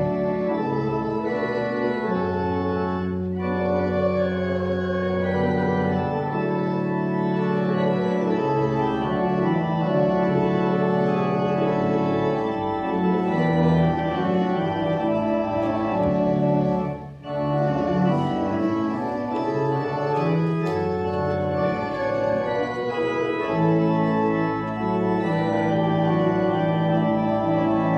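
Organ playing slow, held chords, with a brief break a little past halfway.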